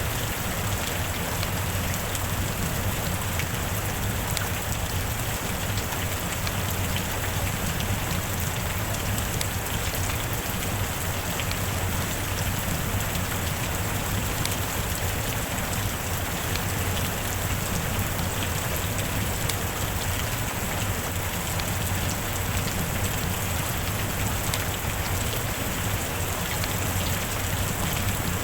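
Steady rain falling, with single drops ticking sharply through the even hiss.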